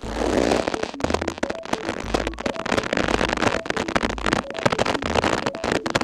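Rope being pulled and stretched taut, its fibres creaking in a dense run of crackles that starts abruptly and stops near the end. A quiet synth-piano tune plays underneath.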